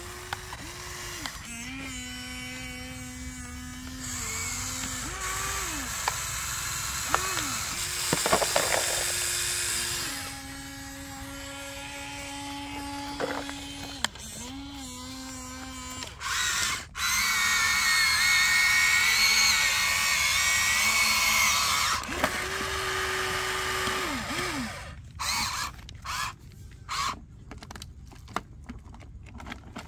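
Small electric motors of a toy remote-control excavator whine in a series of short runs, each rising in pitch as it starts and dropping as it stops. A louder, rougher noisy stretch comes in the middle as the bucket works the soil, and a run of sharp clicks follows near the end.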